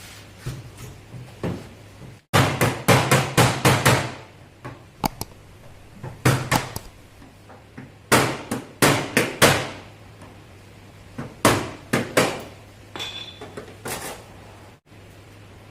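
Hammer striking the sheet metal of a car's rear door, in quick runs of several blows with a short metallic ring after each, as a dent is worked out. A steady low hum runs underneath.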